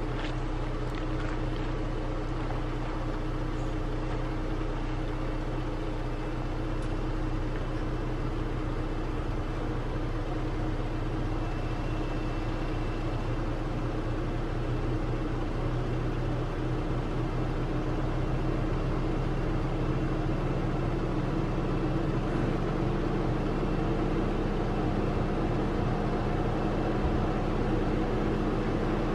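A vehicle engine idling steadily, an even hum that grows slightly louder toward the end.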